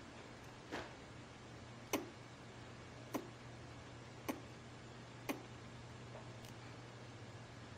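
A five-week-old Dutch dwarf rabbit sneezing over and over: about six short, sharp sneezes roughly a second apart, the loudest about two seconds in and the last ones fainter.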